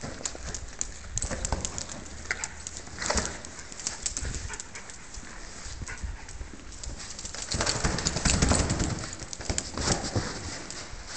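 A small poodle's claws clicking and skittering on a marble floor as it noses and bats a rubber balloon, the balloon rubbing and tapping against its muzzle. There is a louder stretch of scuffling about eight seconds in.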